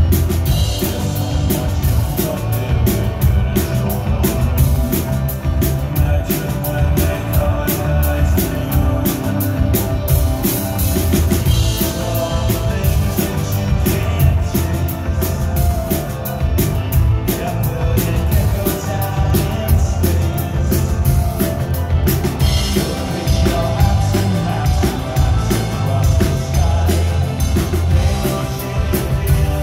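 Live rock band playing: drum kit, electric bass, electric guitar and keyboards, with a man singing lead.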